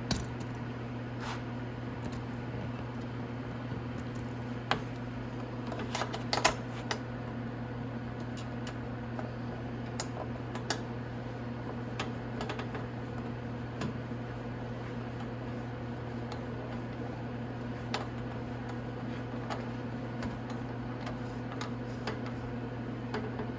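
Scattered light clicks and taps of hand tools on motorcycle fairing bolts and nuts as they are fitted and tightened, over a steady low hum.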